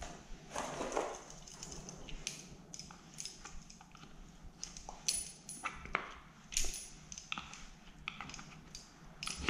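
A thin metal pick scraping and clicking against a Makita chainsaw's blue plastic cover, digging packed sawdust out of its recesses. The scratches and ticks come irregularly, with a longer rubbing noise near the start and occasional handling knocks.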